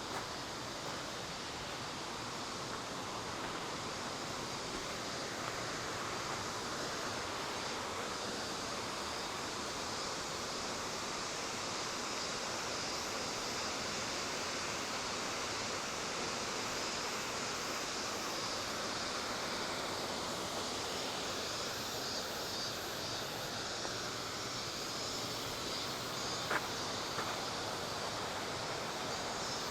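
Steady outdoor nature ambience: an even rushing hiss with no distinct events, and a single faint click about 26 seconds in.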